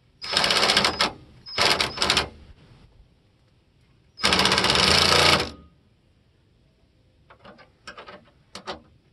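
Ryobi cordless impact driver tightening a bolt in short bursts of rapid hammering: one of about a second, two quick blips, then a longer burst about four seconds in. A few faint clicks follow near the end.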